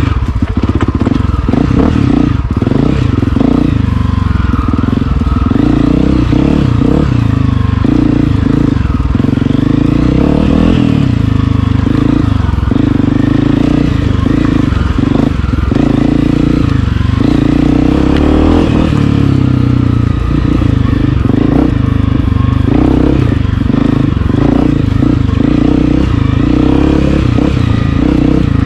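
Honda CRF250F's air-cooled single-cylinder four-stroke engine running under load, its revs rising and falling with the throttle.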